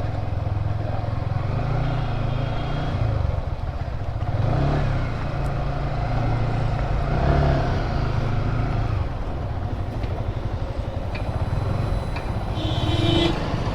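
Yamaha R15 single-cylinder motorcycle engine running on the move, revs rising and falling twice, on a freshly fitted chain and sprocket that now runs smoothly. A brief high-pitched tone sounds near the end.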